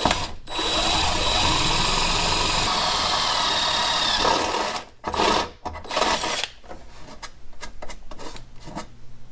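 DeWalt cordless drill spinning a step drill bit through the sheet-metal inner panel of a car hood: a steady high whine with cutting noise for about four seconds, then two short bursts, followed by light clicks and rattles from handling.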